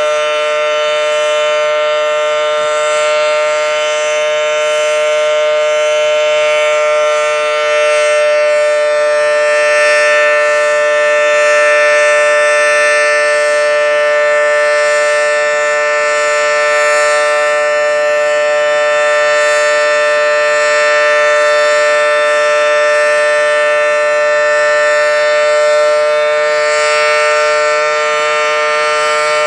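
Federal Signal Model 7T outdoor warning siren sounding a steady, very loud two-note tone at full pitch, almost painful directly underneath, swelling only slightly in loudness as it turns very slowly.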